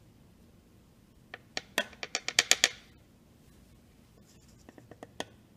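A quick run of about ten sharp clicks, coming closer together, then a few fainter taps near the end. These are a metal spatula and a plastic reagent bottle knocking together as magnesium oxide powder is scooped and tapped out for weighing.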